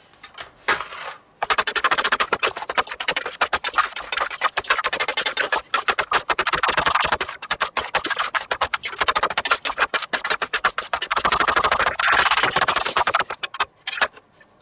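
Two metal spatulas rapidly chopping and mixing rolled ice cream base on a stainless steel pan: a fast, continuous clatter of metal-on-metal taps. It starts about a second and a half in and stops shortly before the end.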